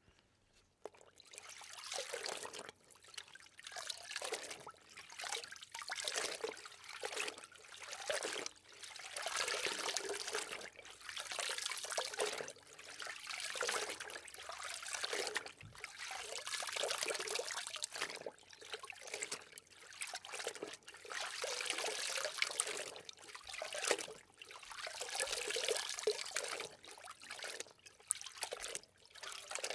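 Water trickling and splashing in uneven surges that swell and fade every second or two, as in an object being soaked in water.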